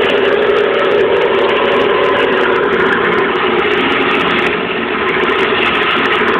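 Wood lathe running steadily with a wooden spindle spinning, a hand turning chisel held against it on the tool rest, giving a constant hum with scraping noise on top.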